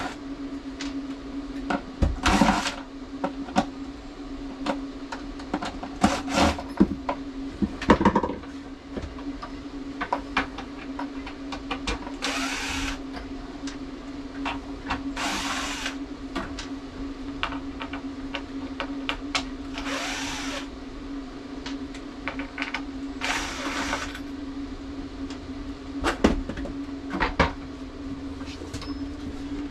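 Cordless drill-driver backing out cabinet-door hinge screws in several short runs of about a second each, with clicks and knocks from the hinge and screws between runs. A steady hum runs underneath.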